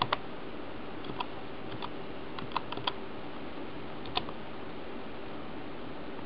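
Computer keyboard keys pressed one at a time: about ten slow, scattered clicks over the first four or five seconds, then only a faint steady background hum.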